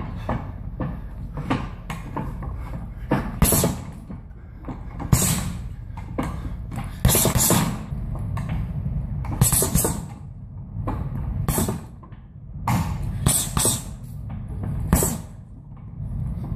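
Gloved punches landing on a hanging round heavy bag: a run of sharp thuds at uneven spacing, some in quick doubles, with the hardest hits every couple of seconds.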